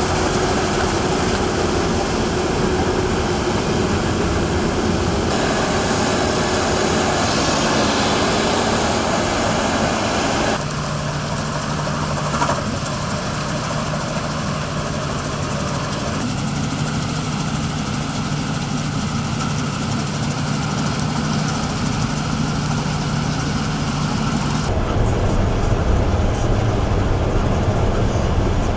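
Heavy farm machinery engines running steadily, with a low hum, in several clips cut together, the sound changing abruptly at each cut.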